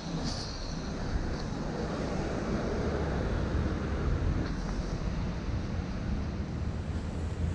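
Steady low rumble and hiss of outdoor street noise, swelling a little around the middle.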